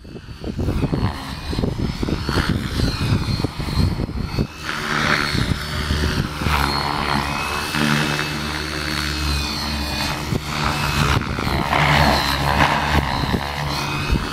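Electric 700-class RC helicopter (Beam E6, Align 700MX motor) in flight: a steady high motor and rotor whine, with blade whoosh that swells and fades as it manoeuvres. Heavy wind buffeting rumbles on the microphone, strongest in the first few seconds.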